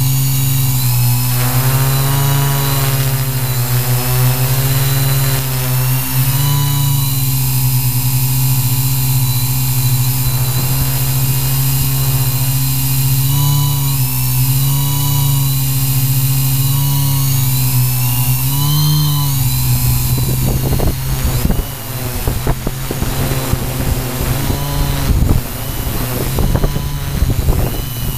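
Quadcopter's electric motors and propellers droning steadily, heard from a camera on the drone itself, the pitch wavering as the motors speed up and slow down to hold the flight. From about twenty seconds in, gusty wind buffets the microphone over the motor drone.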